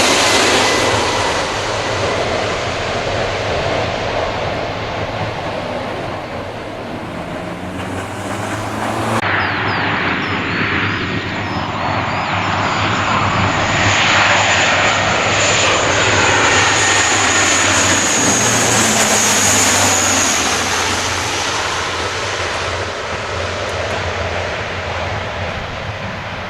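Boeing C-17A's turbofan engines running loud as the aircraft passes; the engine whine's pitch lines glide slowly downward. The sound changes abruptly about nine seconds in.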